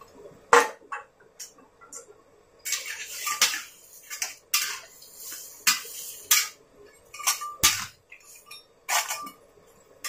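A metal utensil clinking and scraping against a steel wok full of seafood, in a dozen or so irregular strokes, some ringing briefly.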